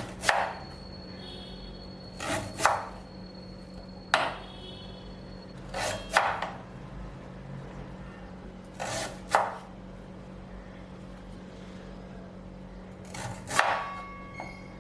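Knife chopping crisp banana stem into small pieces, in short pairs of strokes every couple of seconds, with a longer pause before a last pair near the end.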